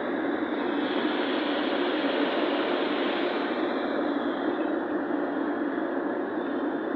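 Steady rush of tyre and wind noise from a car cruising at highway speed, heard from inside the cabin.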